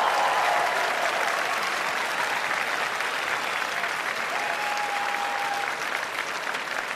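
Large audience applauding, a dense steady clapping with a few cheering voices over it.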